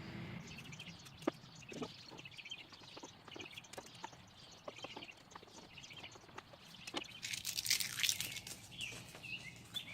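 Electrical tape being unrolled and wrapped around a spliced wire joint, with scattered small clicks and handling noises, and a louder crackling stretch of tape coming off the roll near the end.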